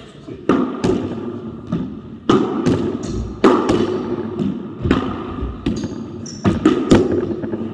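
Irregular sharp knocks and thuds of a padel ball, rackets and quick footsteps on a wooden squash court floor, about a dozen in all, each ringing on in the enclosed court. A short high squeak comes about six seconds in.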